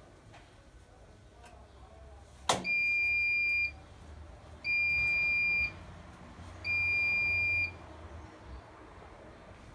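Bosch Avantixx 7 kg washing machine giving its end-of-programme signal: three steady, high-pitched beeps, each about a second long with about a second between them, just after a sharp click.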